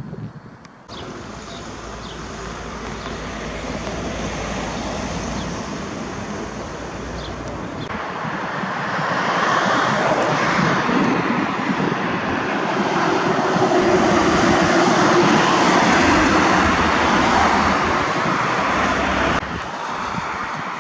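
Loud rushing, engine-like noise that swells over several seconds, peaks, and drops off suddenly near the end.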